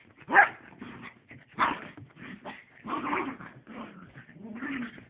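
Miniature pinscher play-growling in a series of short, uneven bursts as it worries a toy, the loudest one just under half a second in.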